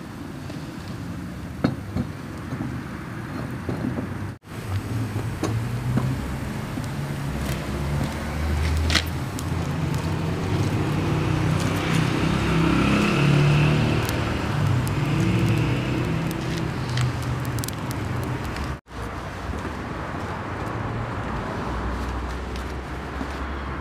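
Outdoor ambience: a steady low rumble with scattered sharp clicks and crackles from a wood fire being fed with sticks under a cooking pot.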